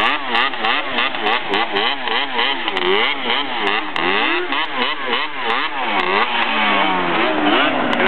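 Sport quad (ATV) engine revved hard in quick repeated throttle blips, its pitch rising and falling about two to three times a second. From about six seconds in, the revs fall away in longer, slower glides.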